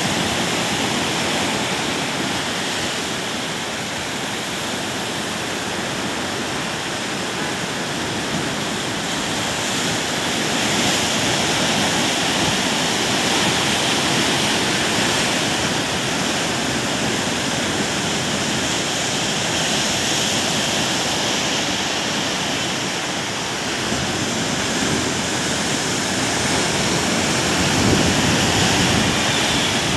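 Heavy hurricane surf breaking against a seawall and rocks: a steady rush of crashing waves and churning white water that swells and eases, with a louder crash near the end.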